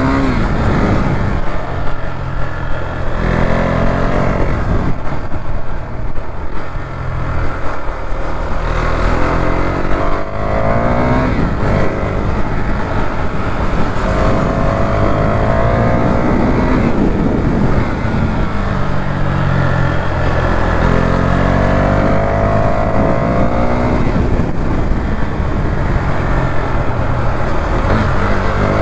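KTM motorcycle engine accelerating hard through the gears: the pitch rises several times, each rise cut off by a drop at an upshift.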